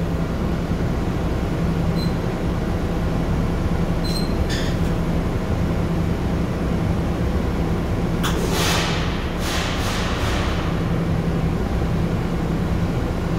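Bombardier T1 subway car running between stations: a steady rumble of the wheels on the track with a low, even hum underneath. There are a few faint clicks, and a cluster of brief hissing swells comes about two-thirds of the way through.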